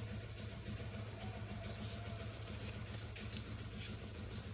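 A steady low hum, with a few faint light clicks and rattles as a pit bull puppy moves about and paws at the bars of its wire crate.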